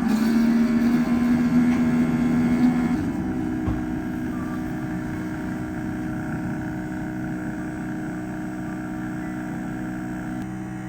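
Subminimal NanoFoamer Pro milk frother running in a pitcher of milk: a steady motor hum with a whir over it. About three seconds in its tone changes and it gets a little quieter, and it keeps running steadily, heating the milk, aerating it briefly and then working the air in.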